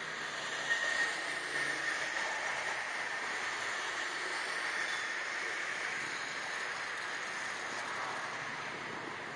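Steady running noise of a moving vehicle, with a faint brief squeal about a second in.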